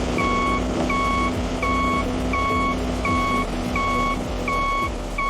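Vehicle reversing alarm beeping steadily, about seven evenly spaced beeps, over a running diesel-type engine rumble.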